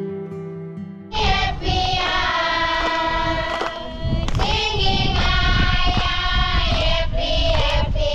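Plucked acoustic guitar notes end about a second in, and a group of children starts singing together in phrases with short breaks.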